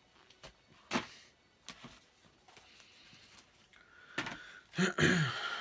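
Handling noise as a paperback book is set down: a few light knocks and clicks, the sharpest about a second in, then louder rustling and scraping near the end.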